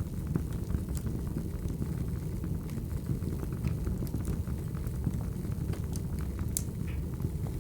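Wood fire burning: a steady low rumble of flames with scattered sharp crackles from the burning logs, one louder crackle near the end.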